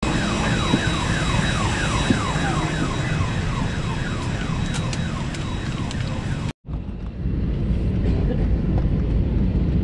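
An electronic alarm warbling, its pitch falling over and over about three times a second, over a low hum. It breaks off suddenly about two-thirds of the way through, and a steady low rumble of airliner cabin noise follows.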